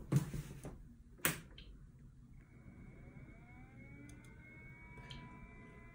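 FlashForge Adventurer 3 3D printer being switched on. A sharp click comes about a second in, then about two seconds in a faint whine of several tones rises and settles into a steady pitch as the printer's fans spin up after power-on.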